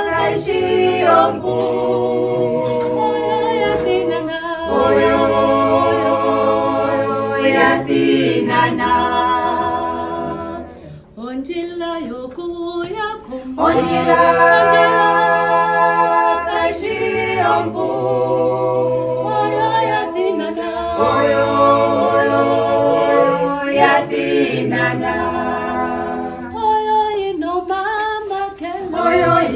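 A small group of women and a man singing together a cappella in harmony, with held notes and a lower part underneath. The singing thins out and drops briefly about eleven seconds in, then comes back at full strength.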